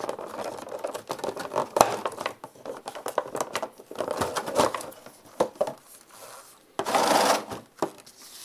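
Clear plastic packaging tray crinkling and clicking as a pistol-grip RC transmitter is lifted out and handled, with a longer, louder crinkle of the plastic near the end.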